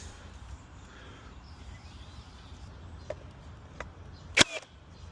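A single sharp crack about four and a half seconds in, much louder than anything else, with two fainter taps shortly before it, over a low steady hum: an impact from trim carpentry work.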